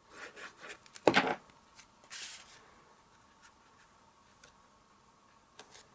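Paper and cardstock being handled on a craft table: small rustles and taps, one sharp thump about a second in and a brief paper swish a second later, then near quiet with a few faint ticks.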